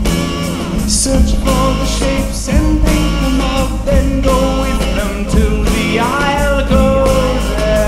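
Rock song with bass, drums and bending melodic lines, recorded at home on a four-track cassette Portastudio.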